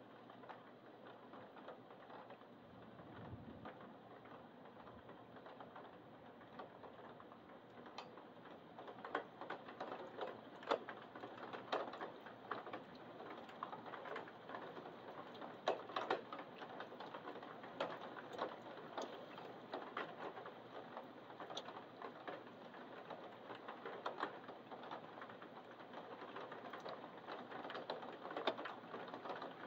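Rain falling in a thunderstorm, with irregular sharp ticks of drops hitting close to the microphone over a soft steady hiss. The ticks grow thicker and louder from about eight seconds in.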